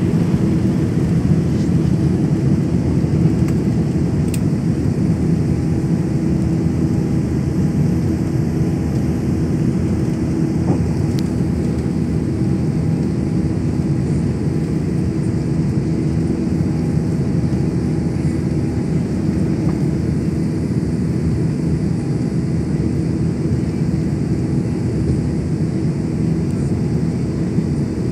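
Airliner's turbofan engines at takeoff power heard inside the cabin from a window seat over the wing: a steady, loud rumble with a low hum beneath it, through the end of the takeoff run and the climb-out.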